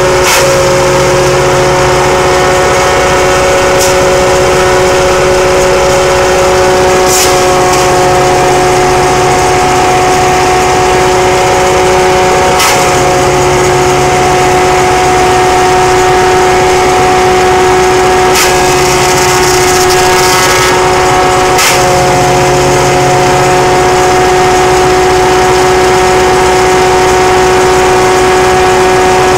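Tractor-driven grinder-shredder running at speed with a steady high whine over the tractor engine's drone. Several short harsh bursts come and go as palm fronds are fed into the chute and chopped.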